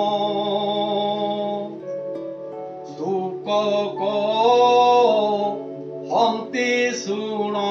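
A man singing a slow Odia devotional invocation in long, drawn-out notes over a steady instrumental drone. The singing eases off briefly about two seconds in, then resumes.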